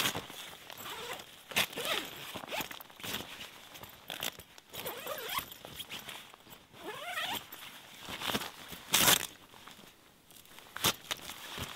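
Zipper on a Russian Bear hot tent's window flap being run in several short pulls, with the tent fabric rustling as the flap is pulled back, rolled up and strapped. The strongest rasp comes about nine seconds in.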